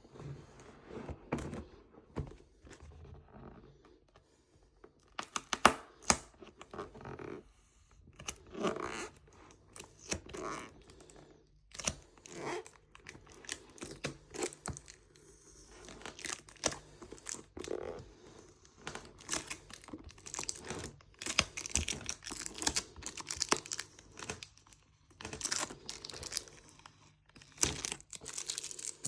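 Keyboard packaging being handled during unboxing: cardboard and plastic crinkling, rustling and tearing in irregular bursts, with occasional sharp knocks.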